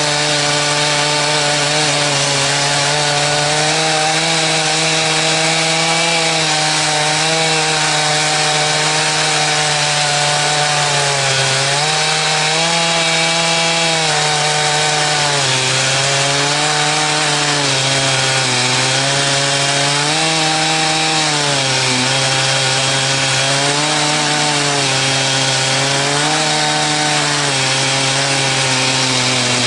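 Chainsaw on an Alaskan chainsaw mill running under load, ripping a log into one-inch boards. The engine note is steady at first, then from about a third of the way in sags and recovers every couple of seconds as the chain works through the cut.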